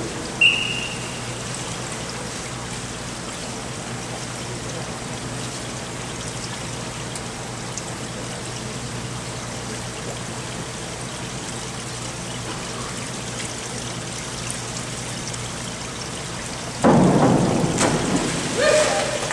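Steady trickling hiss of indoor pool water with a low hum underneath, and a short high whistle about half a second in. About seventeen seconds in, a diver's splash into the pool comes in suddenly and loudly.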